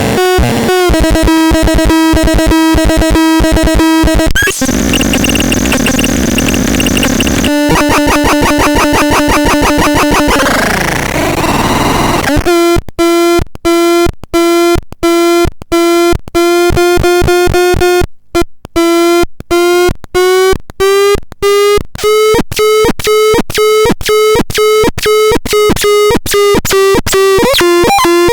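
Harsh electronic tones from the Excrementon 320 noise synthesizer. It starts with a buzzy tone chopped into fast stutters, then moves through noisy swooping sweeps. From about halfway it settles into a tone pulsing on and off in a steady rhythm that slowly climbs in pitch.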